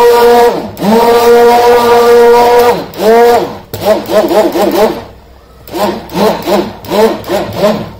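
Hand-held immersion blender motor running in short bursts in a cream emulsion, its whine dropping in pitch at each stop and wavering as it works the mix, with a brief pause about five seconds in. Melted oils are being blended into the water phase little by little to emulsify the cream.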